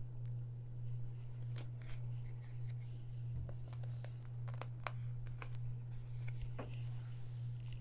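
Light ticks, taps and scratchy scrapes as fingers dab air-dry clay into a silicone mould and a plastic scraper is drawn across the mould's face, irregular and closer together from about a second and a half in. A steady low hum runs underneath.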